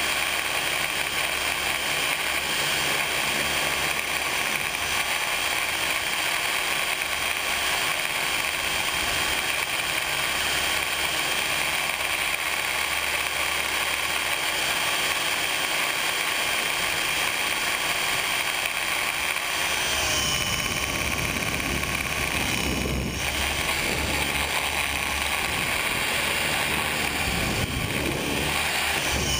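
Radio-controlled helicopter's motor and rotor whine, recorded by a camera on the helicopter in flight: a steady mechanical whine with hiss. About twenty seconds in, the tone changes and a low rumble comes in.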